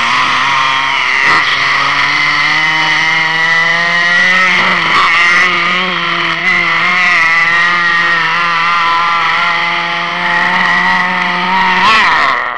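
Chainsaw engine running steadily at high revs, its pitch wavering slightly, with a brief swoop in pitch near the end before it cuts off.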